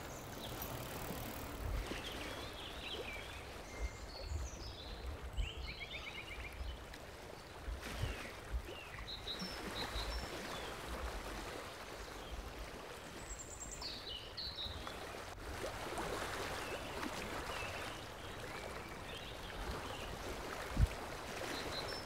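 Outdoor nature ambience: a steady low hiss with some low rumble, and a few short bird chirps scattered through.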